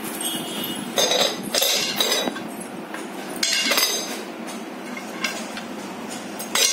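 Upturned metal dog bowl clanking and scraping on a concrete floor as a puppy noses and pushes it, in several short bursts.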